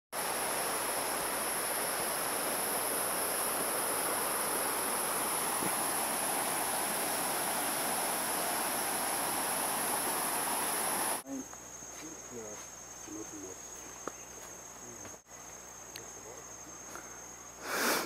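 Rainforest insect chorus: a steady high-pitched buzzing drone over a constant hiss. About 11 s in it cuts abruptly to a quieter chorus with a single high, steady insect note, and a brief louder noise comes just before the end.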